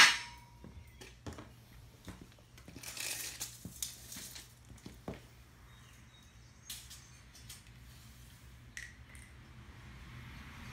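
A steel Unistrut channel clanks once against a concrete floor with a short metallic ring, followed by faint scattered clicks and rustling as a tape measure is pulled out and laid along the strut.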